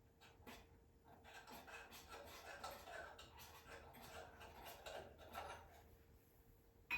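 Faint rubbing and small ticks of a light bulb being unscrewed from its socket.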